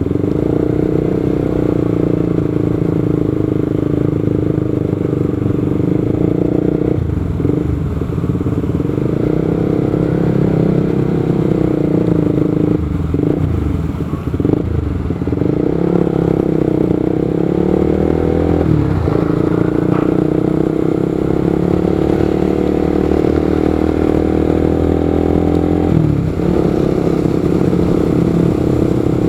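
A motorcycle engine running steadily while riding, with road noise. Its note dips briefly a few times as the throttle eases and picks up again.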